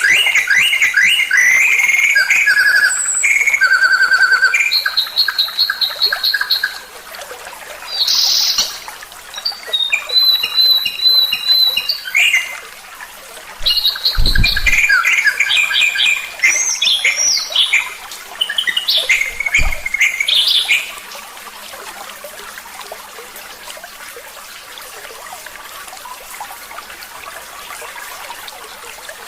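Songbird singing a varied stream of rapid trills and whistled phrases, repeated in short bursts, as in a 'masteran' tutor recording for songbirds. Two low thumps come near the middle, and the singing stops about two-thirds of the way through, leaving a steady hiss.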